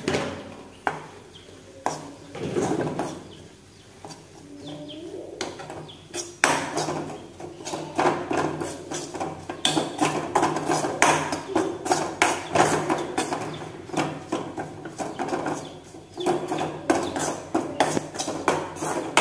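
Steel spoon stirring and scraping a thick chili-powder and roasted-coconut masala around a metal kadai: repeated metal-on-metal knocks and scrapes, few at first, then quick and continuous from about six seconds in.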